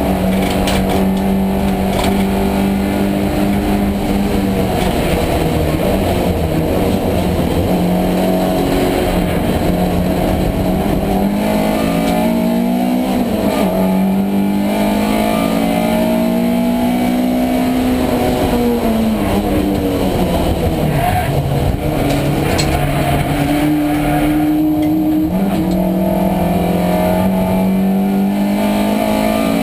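Race car engine heard from inside the cockpit, running hard at racing speed, its pitch climbing and falling with gear changes and braking, with a deep drop about two-thirds of the way through before it climbs again. Road and wind noise run underneath.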